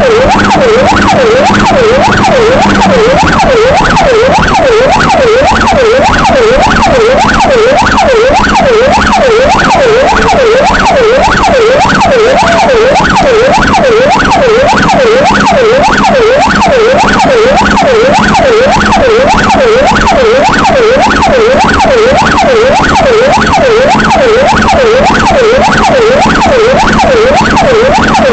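Emergency vehicle's electronic siren heard from its own cab, a loud fast up-and-down wail of about two sweeps a second, unbroken, over a steady low hum; it signals an emergency run, asking traffic ahead to yield.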